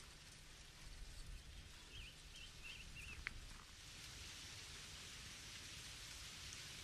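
Faint, steady crackle and hiss of dry brush burning, with a few short wavering chirps about two to three seconds in.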